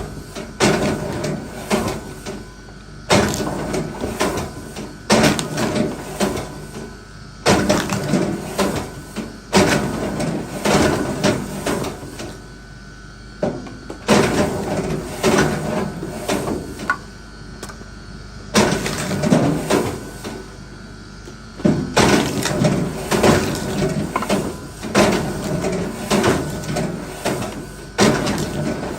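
Irregular wooden knocks, each followed by a second or so of scraping, a new knock every one to few seconds, as wood is worked or handled.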